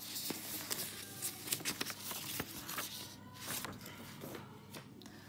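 Paper notebook pages rustling and crackling as they are handled and turned, with many small sharp clicks and crinkles.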